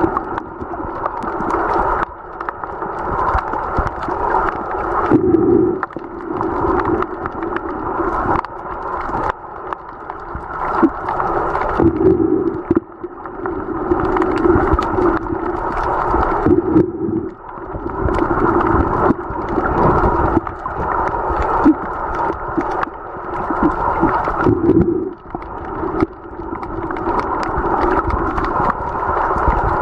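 Muffled underwater sound picked up through a camera's waterproof housing: water noise that swells and dips every few seconds, with scattered clicks and knocks.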